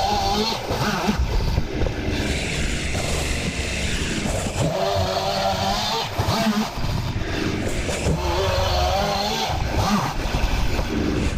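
Gas chainsaw running, revving up in several bursts as it cuts through deck boards and dropping back between cuts.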